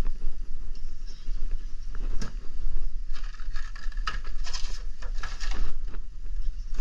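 Rustling and clattering from hands handling tools and gear, with a sharp knock about two seconds in and a busier patch of clatter in the middle, over a steady low rumble.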